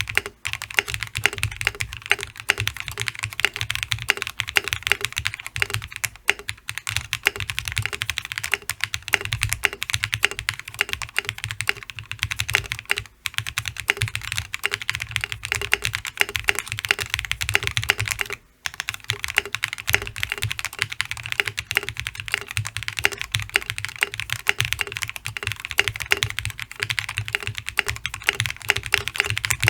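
Fast, continuous typing on a Gray Studio Space65 custom mechanical keyboard with lubed Durock POM switches, an FR4 plate, case foam and Infinikey Monochrome keycaps. There are brief pauses twice, about halfway through.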